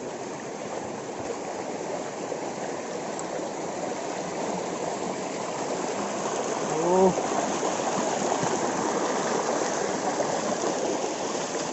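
Steady rush of a hill river's water flowing down from the mountain. A brief voice cuts in about seven seconds in.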